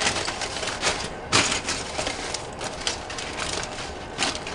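Aluminium foil crinkling and crackling as it is pressed and tucked down over a roasting chicken, with a sharper, louder crackle about a second and a half in.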